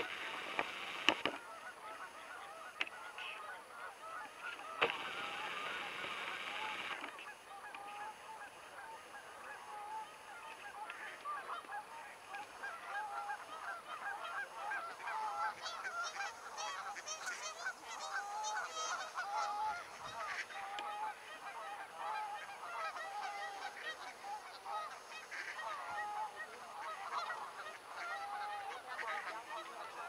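Canada geese honking, many short calls overlapping and repeating throughout. Two brief rushes of noise come in the first seven seconds.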